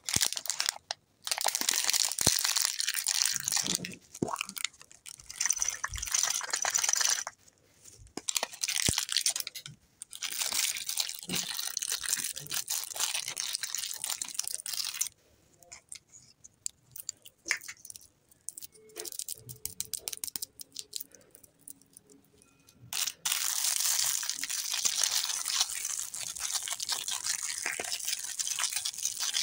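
Crinkling and tearing of plastic candy packaging as Toybox lollipop capsules are opened and a lollipop is unwrapped, with small clicks from the plastic shells. It comes in stretches of a few seconds with short quiet gaps, running unbroken over the last several seconds.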